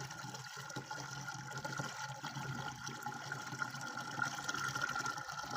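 Water running from a pipe into a container as it fills, a steady pouring that grows a little louder toward the end.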